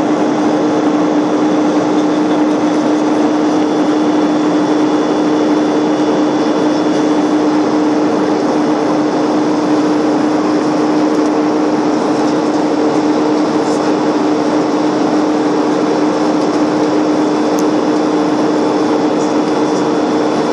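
Steady airliner cabin noise with the engines running: an even rushing drone with two steady low hums through it.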